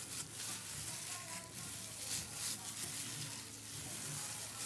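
Raw liver being mixed in its soy sauce and calamansi marinade: a steady wet squishing and sloshing with small scattered crackles.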